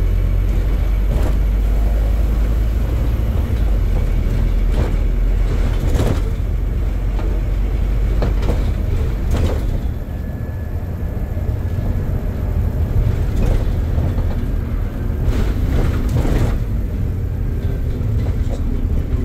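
Scania Visionaire double-decker bus heard from the upper deck while under way: a steady low rumble of engine and road noise, with a handful of sharp knocks and rattles from the body and fittings. The rumble eases briefly about ten seconds in, then builds again.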